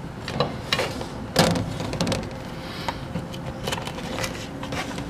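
A plastic pizza server scraping and knocking against a metal pizza pan as slices are lifted. It makes a string of short clicks and scrapes, the loudest about a second and a half in.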